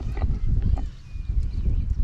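Wind rumbling on the microphone in uneven gusts, with faint scattered clicks above it.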